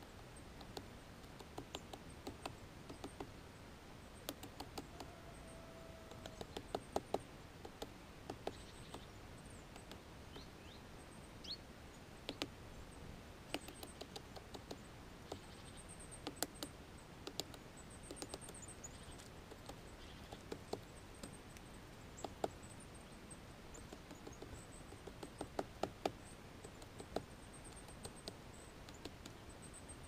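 Great spotted woodpecker pecking at a pine cone wedged in its anvil in a pine trunk: irregular sharp taps in quick clusters with pauses between.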